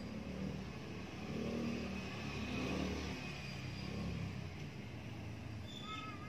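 A motor vehicle passing: a low rumble that swells over the first few seconds and then fades. A crow caws once near the end.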